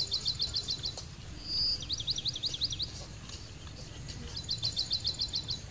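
A bird singing: three quick runs of high chirps, about eight a second, with one short whistled note between the first two runs. A low steady rumble runs underneath.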